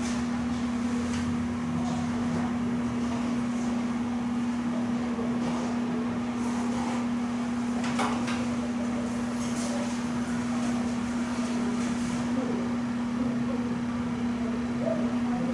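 Steady electrical or mechanical hum, one even tone over room noise, with a few faint clicks and rustles; the clearest click comes about eight seconds in.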